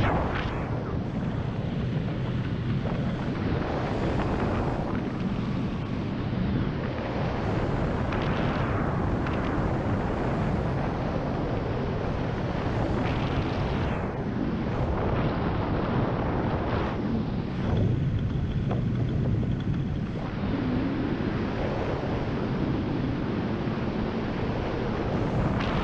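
Wind rushing past a GoPro microphone in flight during a descent, swelling and easing every few seconds, with the aircraft's engine idling steadily underneath.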